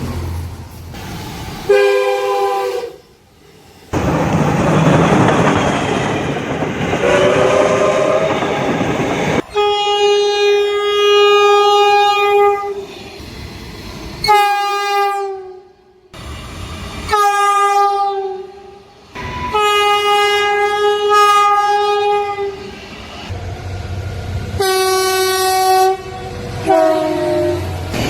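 Horns of passing trains, one edited clip after another: blasts of several tones sounding together, some long and some short, a few sliding down in pitch as the train goes by (the Doppler effect). In one stretch the rumble and rail clatter of the passing train runs under the horn.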